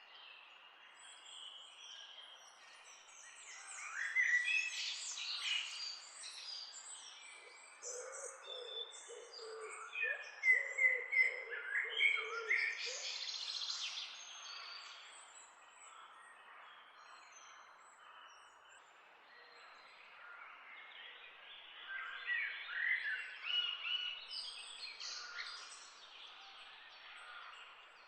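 Several wild birds chirping and singing over steady background noise, in busy spells about four seconds in, from about eight to fourteen seconds in, and again about twenty-two seconds in. Lower-pitched calls join in during the middle spell.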